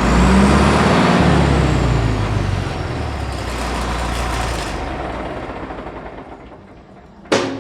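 Caterpillar D4H crawler dozer's diesel engine running, loudest at first and fading away over several seconds. A short sharp knock comes near the end.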